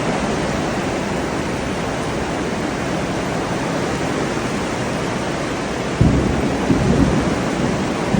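Heavy rain pouring down in a steady hiss, with a sudden low rumble about six seconds in.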